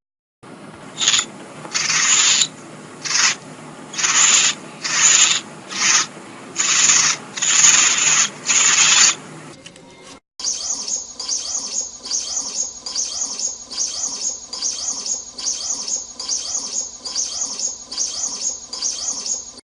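Compsognathus creature sound effects. First comes a series of about nine short, raspy hissing calls, roughly one a second. Then, about halfway through, a fast run of high chittering chirps repeats about twice a second.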